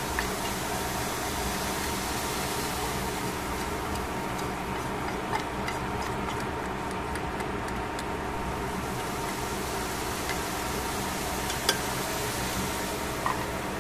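Steady mechanical hum, like a fan or appliance motor. Over it come a few sharp light metal clicks and taps as a tuna can is tipped and pressed against a stainless steel bowl to empty it, the loudest about three-quarters of the way through.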